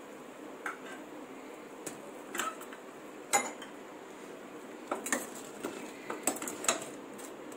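Steel spoon clinking and scraping against a stainless steel pot as fried sweets are turned in sugar syrup: a series of sharp metallic clicks, the loudest about three seconds in and several more close together in the second half.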